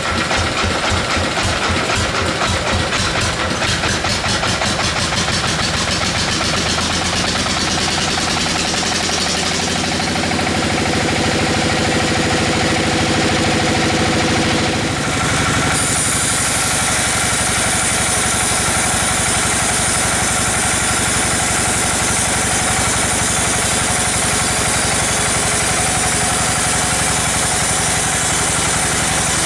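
Engine-driven sawmill machinery running steadily with a fast low pulsing. About halfway through the sound shifts and a high hiss joins in.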